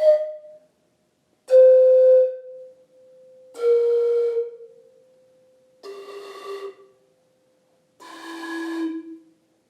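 Hand-made cracked six-tube ceramic antara (pan flute) blown one tube at a time: breathy notes about a second each, four of them, stepping down in pitch, with the end of a higher note ringing out at the start.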